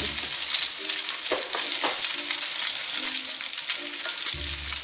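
Food frying in a pan, a steady crackling sizzle, with a few sharp knocks of a ladle against a steel pot.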